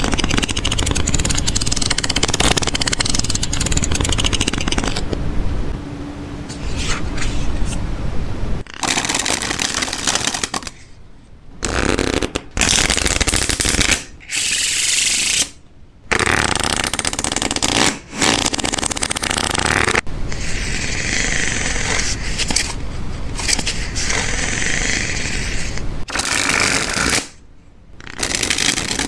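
A deck of playing cards being shuffled and riffled by hand: rapid fluttering card rattle, continuous at first, then a run of bursts a few seconds long that stop abruptly with short pauses between.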